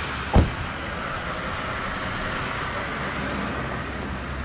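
2004 Maybach 62's twin-turbo V12 running steadily just after starting, with a single heavy thud about half a second in.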